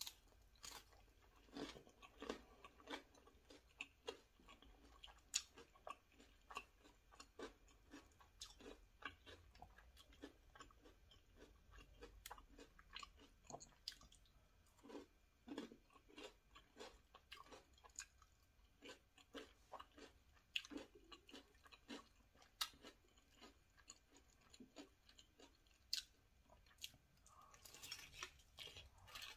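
Quiet, close-miked chewing and biting of a Cheeto-crusted chicken drumstick: a steady run of small sharp crunches and mouth clicks.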